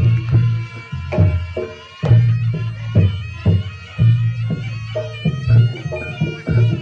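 Reog Ponorogo music: a slompret shawm playing a wavering, reedy melody over regular drum strokes and low gong-chime beats.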